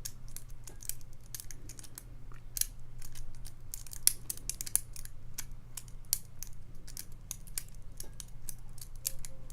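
Lock pick working the pin stack inside a challenge padlock: irregular small metallic clicks and scrapes as the pins are pushed and set, with pins dropping back. A steady low hum runs underneath.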